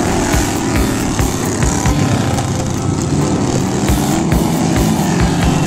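Racing lawn mower engines running loud and steady.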